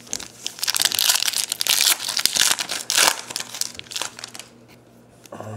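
Crinkly wrapper of a pack of trading cards being crumpled and opened: a dense run of crackling that thins out after about four seconds.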